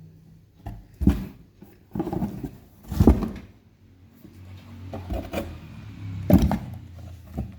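Kittens scuffling and pouncing in a cardboard box: a run of thumps and scrapes against the cardboard, loudest about three seconds in and again past six seconds.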